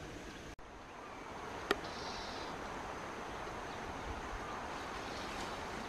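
Steady outdoor background hiss with faint rustling, broken by a brief dropout about half a second in and one sharp click a little over a second later.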